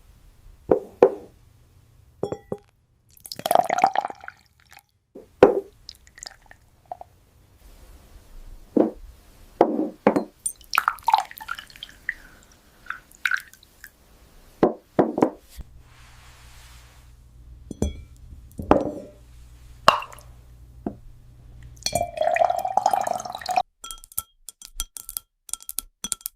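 Handling of novelty bottles: scattered taps, clinks and knocks, with plopping and dripping water in places and a low hum underneath at times.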